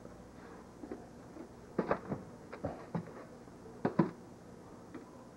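Books and papers being handled by hand in a box: light rustling with several knocks and thumps, a cluster about two seconds in and the loudest pair near four seconds.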